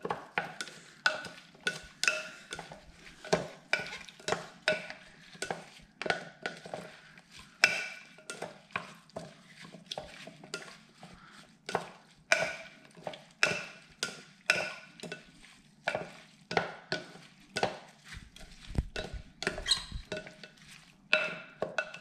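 Spoon stirring in a bowl, clinking against its side about twice a second, each tap leaving a short ring.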